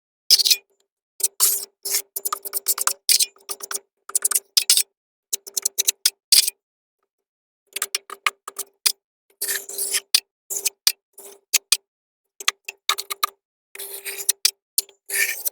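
Cordless power driver running in many short bursts, driving screws into wood and drywall. Each burst has a steady motor whine under rapid clicking, with abrupt silences between.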